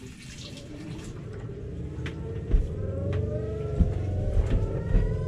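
A whine in the boat's freshwater plumbing, like a cat, rising steadily in pitch from about two seconds in as something builds pressure, with a few knocks over it. The owner takes it for a clogged check valve stopping water from entering the water heater.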